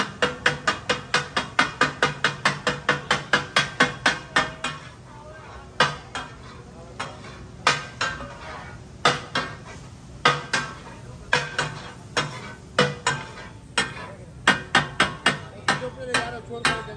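Metal spatulas striking a hot tawa griddle in katakat chopping. The strikes come fast and even, about five a second, for the first four or five seconds, then turn irregular and sparser, sometimes in quick pairs.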